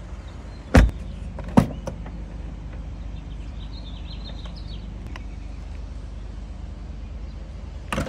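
Heavy thuds of a 2022 Mercedes-Maybach S 580's door and trunk lid shutting: two loud ones a little under a second apart about a second in, and another near the end, over a steady low rumble.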